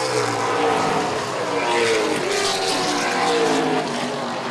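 A field of late model stock cars racing on a short oval track. Several V8 engines run at high revs at once, their pitches slowly rising and falling as the cars pass.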